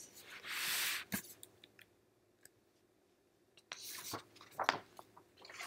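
A soft breath near the microphone, then a few sharp, soft clicks spread through a quiet pause.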